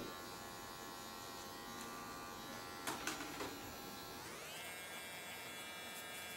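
Wahl electric hair clippers buzzing steadily as they cut up the back of the head, their pitch rising about four seconds in.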